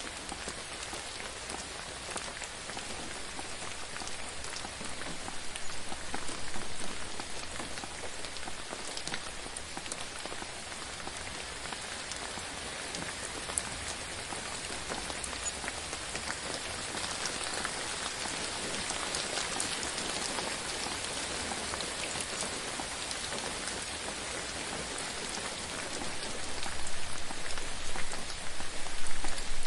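Steady gentle rainfall: a constant hiss dotted with the small ticks of single drops, growing louder for the last few seconds.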